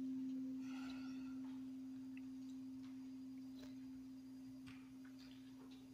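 A single struck bell note: one pure, low tone ringing on and slowly fading away.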